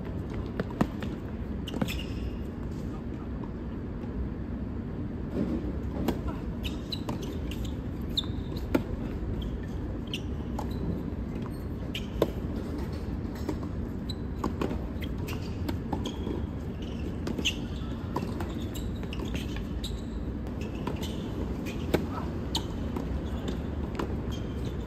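Scattered sharp knocks and clicks at irregular intervals over a steady low background rumble.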